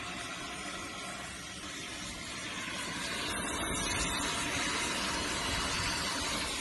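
CNC plasma cutting torch cutting through metal plate: a steady hissing rush from the plasma arc and its gas jet, growing louder about three seconds in.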